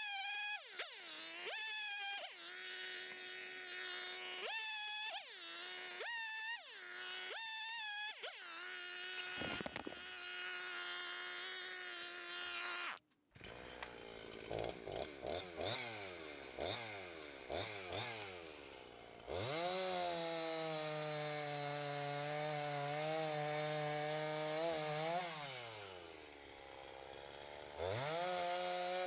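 Two-stroke gas chainsaw bucking hickory firewood: the engine revs up and drops back again and again, then, after a sudden break about 13 seconds in, it is held at high revs through a long cut, easing off and revving back up near the end.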